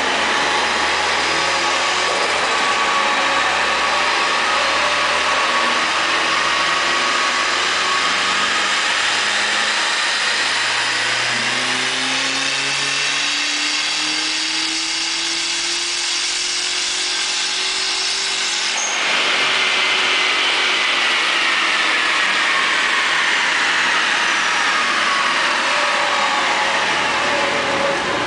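Turbocharged SR20DET 2.0-litre four-cylinder in a 1996 Nissan 200SX running under load on a chassis dyno. Its revs climb steadily for several seconds, then the note changes abruptly about two-thirds through as the throttle comes off, and the pitch falls away as it winds down.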